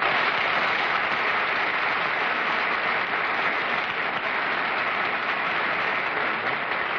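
Studio audience applauding, breaking out suddenly and holding steady.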